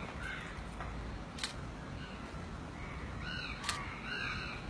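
Crows cawing in a repeated series starting about three seconds in, over a steady low rumble, with two sharp clicks, one about a second and a half in and one among the caws.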